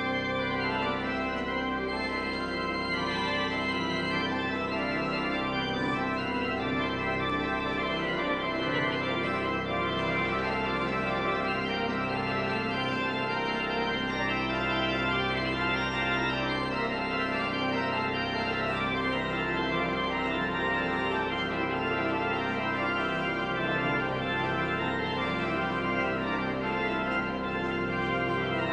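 Church organ playing sustained, held chords at an even level: the closing voluntary after the service.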